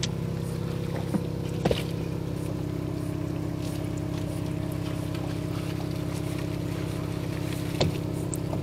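A boat engine running steadily at a constant pitch. Two brief knocks come through, about two seconds in and near the end.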